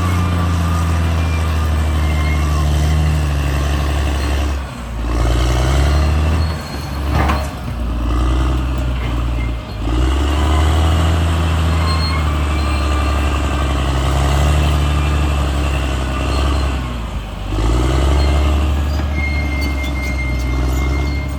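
CAT D6R XL bulldozer's diesel engine running hard under load. Its note dips and recovers several times, and there is one sharp knock about seven seconds in.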